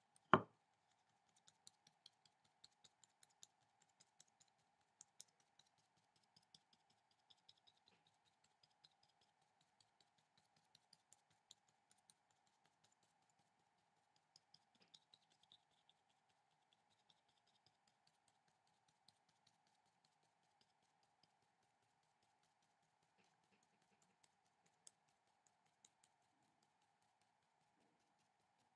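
Faint tapping and light scratching of drawing strokes on paper: many quick soft taps, thicker in the first half and sparse later, with one louder click right at the start. A faint steady hum runs underneath.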